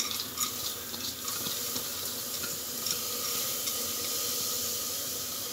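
Soaked, wet toor dal tipped into an empty pressure cooker, the lentils pattering and sliding onto the pot's base. There is a scatter of small ticks in the first second or so, then a steady soft watery hiss.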